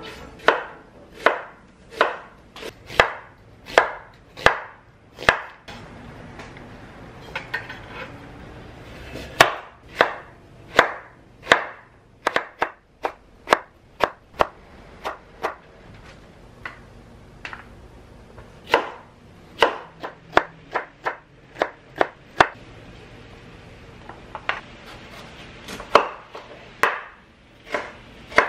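Chef's knife cutting onion, carrot and green bell pepper on a wooden cutting board: a series of sharp knocks of the blade on the board, some spaced about a second apart and some in quicker runs.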